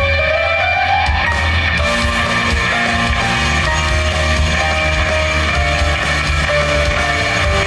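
Live heavy rock band playing: sustained electric guitar notes over a loud, steady bass, with one note sliding upward at the start.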